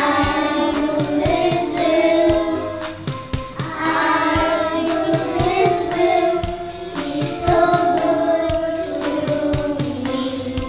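A group of children singing together over a backing track with a steady beat.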